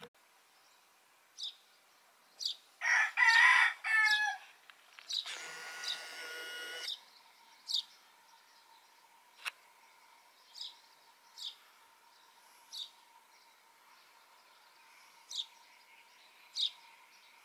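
A rooster crowing: two loud calls close together between about three and seven seconds in, with short, high chirps of small birds scattered throughout.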